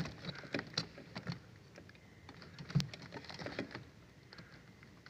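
Irregular light clicks and knocks of hands handling the wiring and plastic connectors in a ceiling cassette air conditioner's control box, with one louder knock near the middle.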